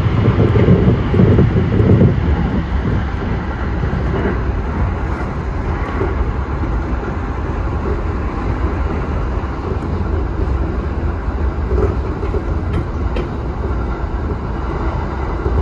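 Running noise inside a moving electric passenger train: a steady low rumble of wheels on rail with some clatter, heaviest in the first couple of seconds.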